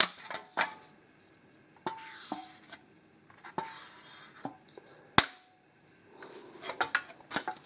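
Scattered clicks and light clinks of small metal objects being handled on a table, with brief rustles of thin metal foil and one sharp click about five seconds in.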